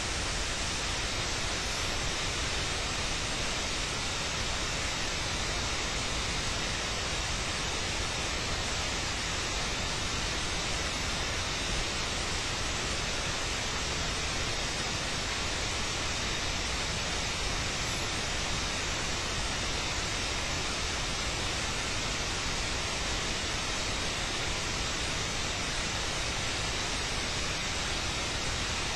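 Steady, even hiss with no distinct sounds standing out; no feeding or movement sounds from the animal are picked out.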